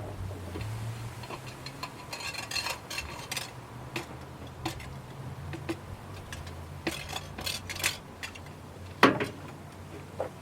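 Metal clicking and clinking of hand tools and intake parts being handled, in scattered runs of small ticks, with one louder knock about nine seconds in.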